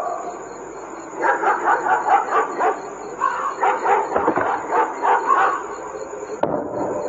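An animal's quick run of short, pitched yelping calls, starting about a second in and going on for several seconds.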